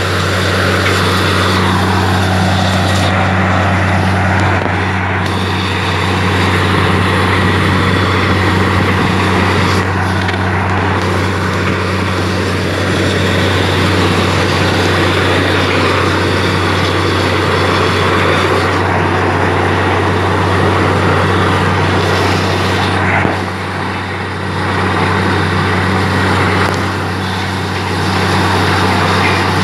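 Borewell drilling rig's engine and air compressor running steadily: a loud, even low hum under a broad rushing noise, as the bore brings up water.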